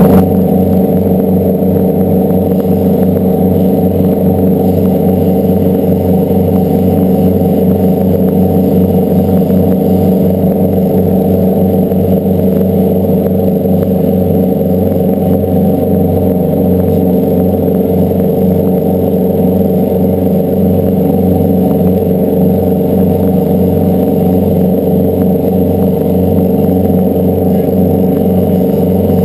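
Boat engines running steadily under way: a loud, even drone.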